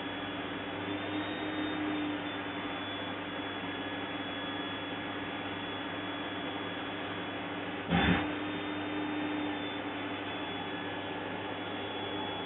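Vacuum cleaner motor running steadily with a constant hum, with a brief louder rush of noise about eight seconds in.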